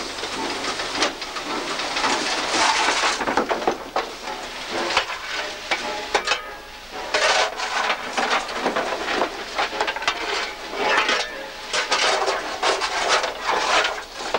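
Coal-handling tools, a steel shovel and coal hammer, clattering and scraping against lumps of coal and the steel plate of a steam locomotive's tender, in irregular sharp knocks.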